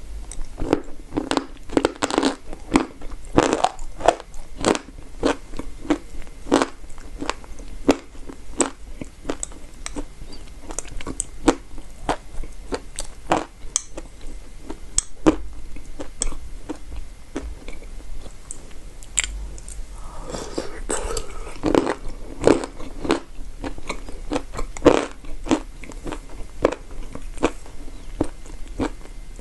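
Close-up crunching of chalk being bitten and chewed: many sharp, brittle crunches, busiest in two spells, near the start and again about two-thirds of the way through.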